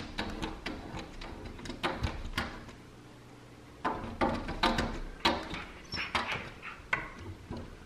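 Alaskan malamutes pawing, licking and nosing at a glass door pane: irregular knocks, taps and rubs on the glass, with a lull of about a second midway.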